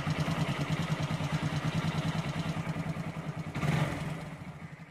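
Hero Glamour's single-cylinder four-stroke engine idling with a steady, rapid putter at about 1,500 to 2,000 rpm. It is briefly louder just before four seconds in, then fades away near the end.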